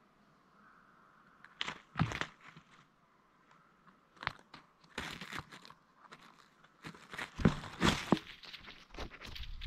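Dry leaves and debris crunching and crackling against a GoPro camera as it is shifted and then dragged on its rope. A few separate crunches come first, then denser scraping and crackling near the end.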